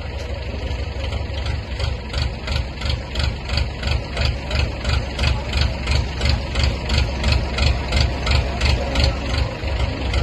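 Truck engine running while the truck is backed up, with a steady low rumble. From about two seconds in it takes on a regular pulse, about two to three beats a second.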